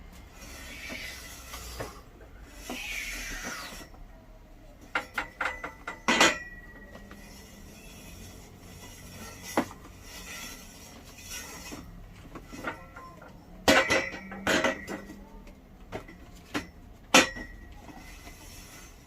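Metal pieces and tools being handled and set down: scattered clinks and knocks, several with a short metallic ring, and a couple of brief scrapes near the start.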